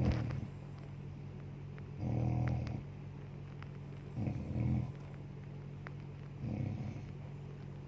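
A woman snoring in her sleep, with a snore about every two seconds, some broken into two parts, over a steady low hum.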